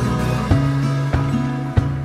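Background music led by an acoustic guitar, with new chords struck about every half second to second.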